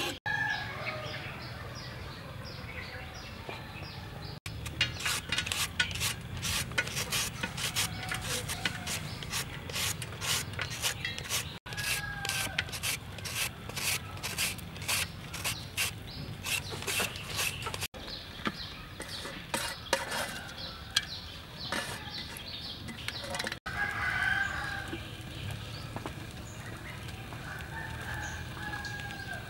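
A rooster crowing now and then. In the middle there is a long run of quick, sharp cutting strokes, about three a second, like a knife working through vegetables.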